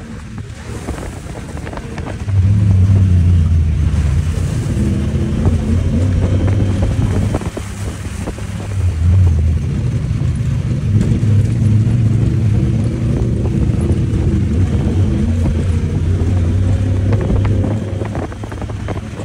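Side-by-side UTV engine driving a trail with the throttle coming on and off. It is lower at first, picks up about two seconds in, eases around eight seconds and pulls again a second later. Wind buffets the microphone.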